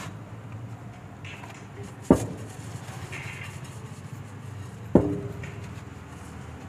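Two sharp knocks of a steel mixing tumbler, about three seconds apart, each with a brief metallic ring, over a low steady background hum.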